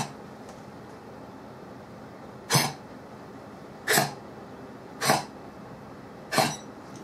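Italian Greyhound coughing: four short single coughs, a second or so apart. It is the chronic cough of eosinophilic bronchopneumopathy, with inflammation throughout the windpipe and bronchi.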